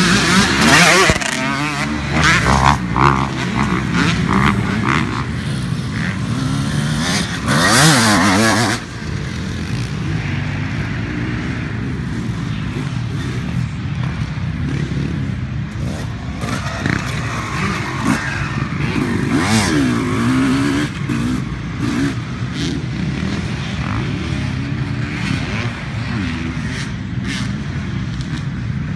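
Dirt bike engines revving up and down through the gears as bikes ride the motocross track. The loudest passes come near the start and about eight seconds in, with another rev-up around twenty seconds.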